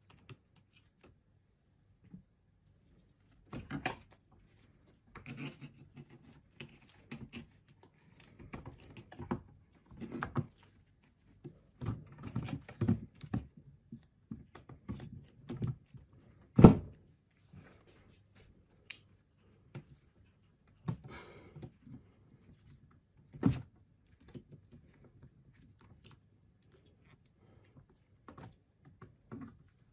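Hands fitting 12 V lead-acid battery blocks and their wiring into a plastic UPS battery cartridge: scattered knocks, rubbing and rustling, with a louder thunk about halfway through and another a few seconds later.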